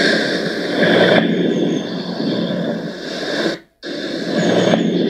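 Recorded normal vesicular breath sounds heard through a stethoscope: a soft rustling that comes mainly on inspiration and runs only briefly into expiration, the sound of a healthy lung. The recording cuts out for a moment a little past halfway.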